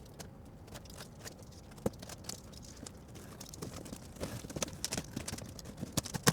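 A cardboard monitor box being opened and its packaging handled: scattered light knocks and scrapes, one sharper knock about two seconds in and a busier run of knocks near the end.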